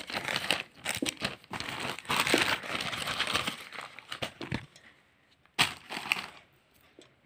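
Foil Pokémon booster-pack wrappers crinkling and crackling as they are handled. It runs busily for about four seconds, then comes in a couple of short bursts before dying away near the end.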